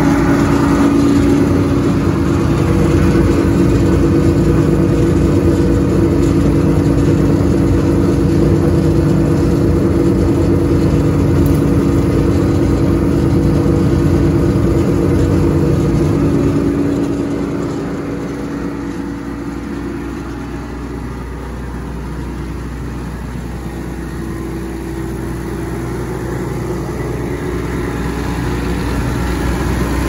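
Timberwolf TW150DHB diesel wood chipper running at a steady speed, a steady hum with no wood being chipped. It grows quieter for several seconds past the middle and picks up again near the end.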